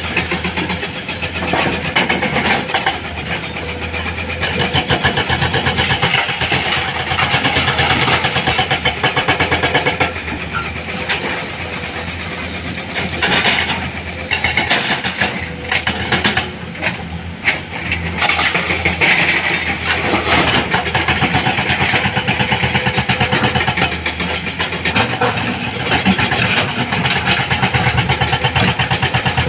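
Heavy diesel engine of earth-moving machinery running with a fast, even chugging, its loudness swelling and easing every few seconds as it works under load.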